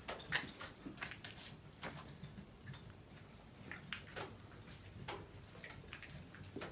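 Faint, irregular clicks and scuffs, about one or two a second, of a Dogo Argentino's paws and claws on hard ground as it walks about with its head down.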